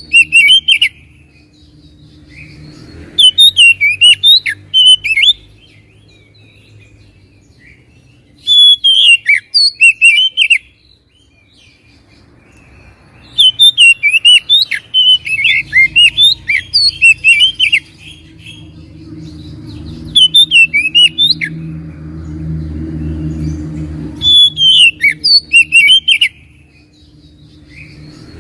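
Oriental magpie-robin (kacer) singing in loud bursts of rapid, sharply gliding chirps and whistles, each phrase one to four seconds long with short pauses between them, over a low steady hum.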